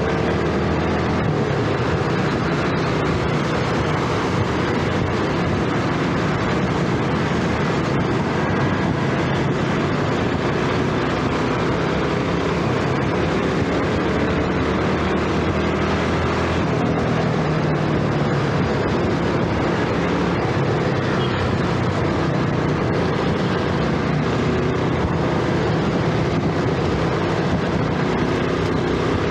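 Underbone motorcycle's small single-cylinder engine running on the move, its pitch rising and falling a little with the throttle, under a steady rush of wind and road noise.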